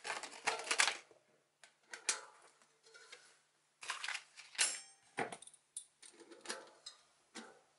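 Metal clicks and clinks, irregular and a few at a time, from the parts of a bearing press tool being handled and fitted on a bicycle rear hub's axle as its T-handle is slid on and the press is threaded together.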